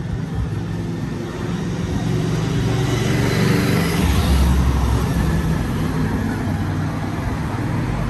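A motor vehicle passing on a town street: its tyre and engine noise swells to a peak around the middle and then fades, over a steady low rumble.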